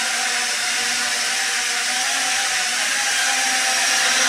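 HHD H6 motorcycle drone, a small toy quadcopter, in flight: its four propellers whir with a steady high whine.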